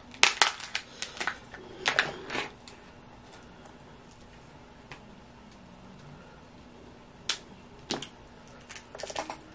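Boiled blue crab shells cracking and snapping as they are pulled apart by hand, in quick clusters of sharp clicks during the first few seconds and again near the end, with a quiet stretch between.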